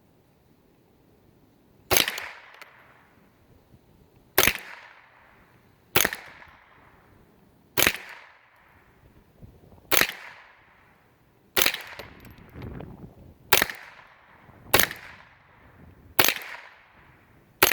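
Ruger 10/22 semi-automatic .22 LR rifle fired slowly and deliberately with Federal bulk-pack lead hollow point ammunition: about ten sharp cracks, one every one and a half to two and a half seconds, starting about two seconds in, each with a short echo after it.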